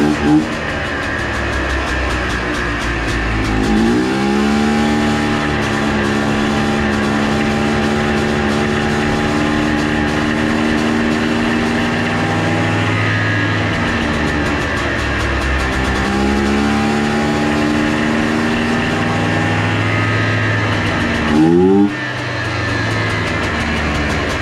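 Polaris Trail Blazer's two-stroke single-cylinder engine, revved up from idle and held at a raised speed twice, dropping back to idle in between, with a quick blip and drop near the end. It runs with a slight miss and hesitation under throttle.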